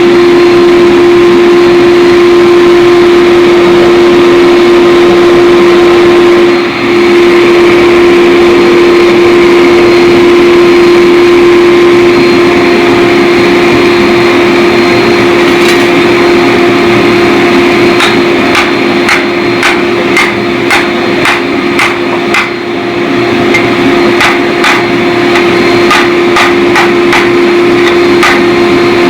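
A steady, loud hum on one pitch runs throughout. For the last ten seconds or so it is joined by a run of sharp hammer strikes on hot 4142 chromoly steel being forged into a tomahawk head, about two blows a second.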